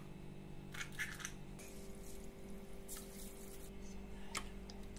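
Quiet kitchen handling sounds: an egg cracked into a small plastic bowl, then a liquid poured from a cup into a large aluminium pot for a short stretch. A sharp click follows just after, over a faint steady hum.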